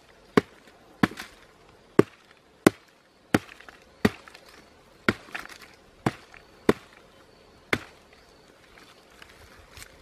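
About ten sharp, separate blows of a hand-held stone chopping into a soft, decayed log, roughly one a second, each followed by a little splintering of the rotten wood. The blows stop nearly eight seconds in.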